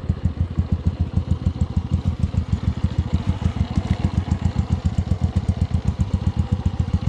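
Motorcycle engine idling at a standstill, its exhaust giving an even, rapid beat.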